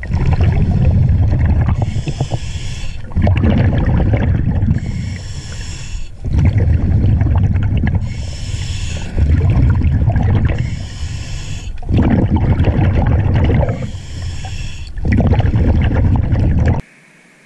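Scuba diver breathing through a regulator underwater: a hissing inhale through the demand valve alternates with a louder, rumbling exhale of bubbles past the microphone, about one breath every three seconds. The sound cuts off suddenly about a second before the end.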